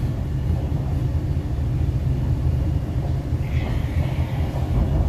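Interior running noise of a Hyundai Rotem R-Train on the MTR East Rail Line in motion: a steady low rumble of wheels on rail and traction. A brief higher hiss comes about three and a half seconds in.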